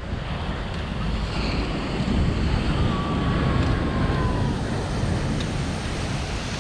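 Surf washing onto the beach, with wind buffeting the microphone in a heavy low rumble.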